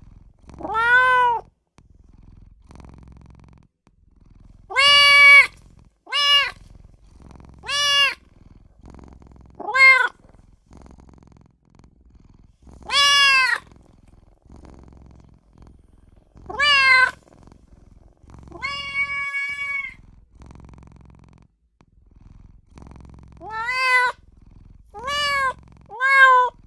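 A kitten meowing repeatedly: about a dozen short, high-pitched calls at irregular gaps, the plaintive crying of a young kitten calling for its mother or owner.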